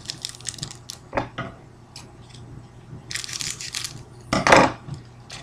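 A trading card pack wrapper being handled and torn open: scattered light clicks and rustles, a crinkling stretch about three seconds in, and a louder rip about four and a half seconds in.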